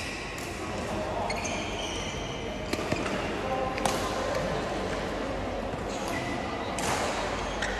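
Badminton rackets striking a shuttlecock a few times, sharp separate knocks, with brief high squeaks of court shoes on the hall floor, over a murmur of voices in the hall.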